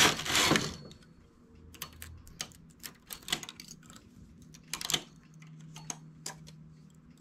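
Knitting machine carriage sliding across the needle bed for about the first second, then irregular small metallic clicks and ticks as a single-eye transfer tool lifts stitches off the latch needles and places them back on the bed.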